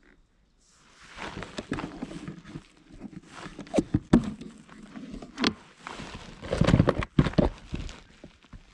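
Irregular rustling with scattered clicks and knocks, the handling noise of an angler moving a fishing rod and shifting in a kayak close to the microphone. It starts about a second in, and the loudest knocks fall around the middle.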